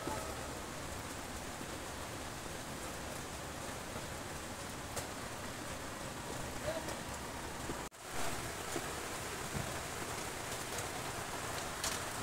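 Steady hiss of rain falling outdoors, with a brief dropout about eight seconds in.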